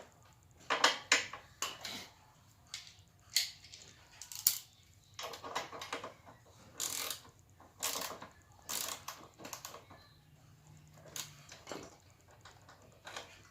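Irregular metallic clicks, clinks and short scrapes from handling and working a mini bike's roller drive chain and tools while a link is fitted.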